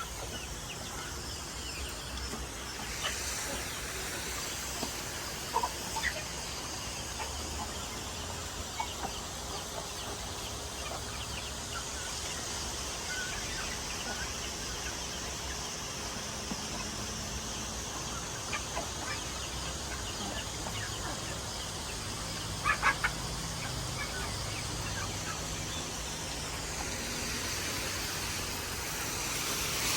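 Backyard chickens clucking, with scattered short calls and a few louder squawks about 3, 6 and 23 seconds in, over a steady hiss.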